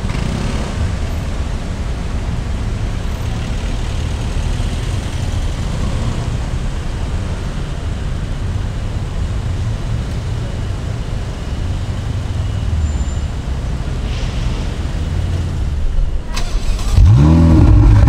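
Sports car engines idling amid street traffic, a steady low rumble. Near the end a close-by Ferrari 488's twin-turbo V8 is blipped once, its pitch sweeping up and back down, far louder than the rest.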